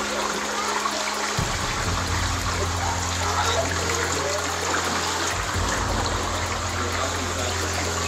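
Flash floodwater rushing and trickling in a steady, unbroken wash.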